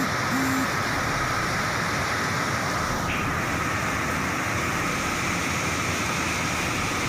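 Steady rushing of a swollen, muddy flash-flood torrent pouring down a hillside after heavy rain, with a brief low tone near the start.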